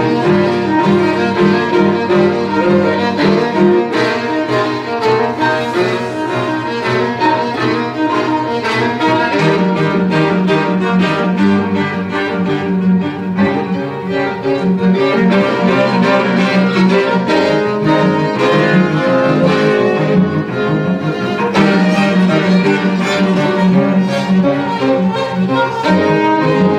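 String quartet of two violins, viola and cello playing live, a continuous passage with quick repeated bowed notes over a sustained low line.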